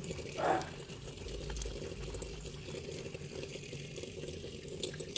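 Kitchen tap running a thin stream into a stainless steel sink while soapy hands rub and lather a bar of handmade cold-process soap under it. A brief louder sound stands out about half a second in.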